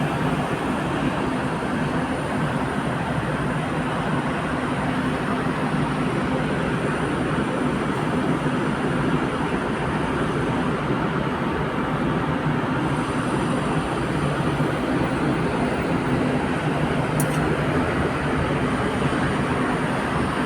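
Steady city din heard from high up: an even wash of distant traffic noise with a low steady hum under it, unchanging in level.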